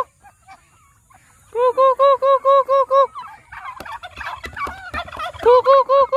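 Domestic turkeys gobbling: a rapid run of even, same-pitched notes about a second and a half in, and another near the end. In between is a jumble of other bird calls and clucks.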